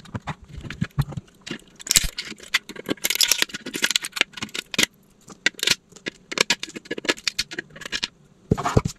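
A blade scraping and cutting at a large 3D-printed plastic figure to clean up the print, making a quick, irregular run of clicks, scrapes and crackles, with the hollow print knocking and rubbing against the table now and then. The scraping is thickest about three to four seconds in.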